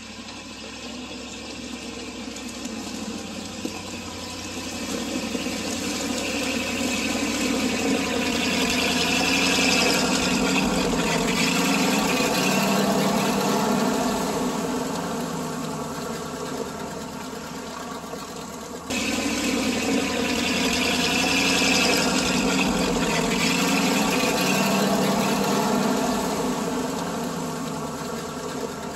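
A motor running with a steady pitched hum and hiss, swelling louder and easing off twice, with an abrupt cut between the two swells about two-thirds of the way through.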